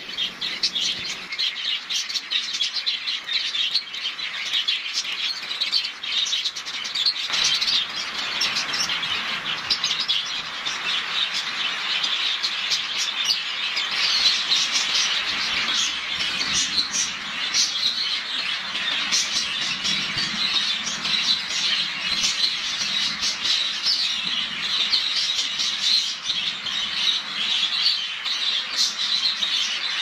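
Birds chirping continuously in a dense chorus of short calls over the steady hiss of falling rain.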